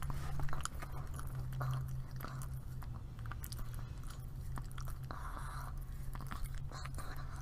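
Yorkshire terrier licking and smacking its lips on a mouthful of whipped cream, a run of small wet clicks close to a microphone over a steady low hum.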